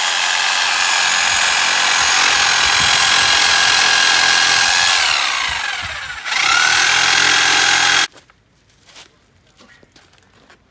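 Corded electric saw cutting through tree roots: the motor runs at a steady high whine, winds down about five seconds in, starts again a moment later and cuts off suddenly a couple of seconds after that, leaving only faint ticks.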